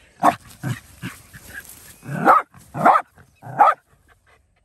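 Small white spitz-type dog barking at a cat: three short, quieter barks in the first second, then three louder barks in the second half.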